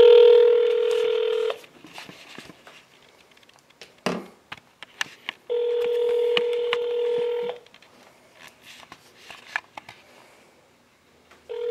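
Ringback tone of an outgoing call heard through a phone's speakerphone: a steady ring of about two seconds, a second ring about five and a half seconds in, and a third starting near the end. Faint handling clicks come between the rings.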